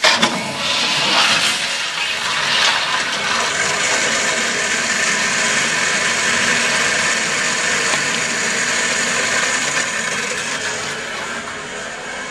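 1994 Crane Economiser toilet flushing: the water starts suddenly with a loud rush, then runs on as a steady rush of water that eases slightly near the end.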